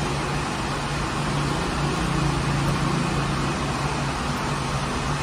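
Bakery's rotating-hearth bread oven running: a steady rushing noise from its burner and drive with a constant low hum.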